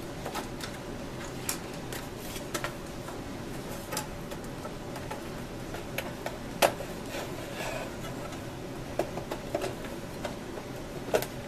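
Scattered clicks and light knocks from the plastic case of a Singer Graflex Study Mate II filmstrip viewer as it is gripped, pried at and turned over while being taken apart. The case is still stuck and not yet coming free. One sharper knock comes a little past halfway.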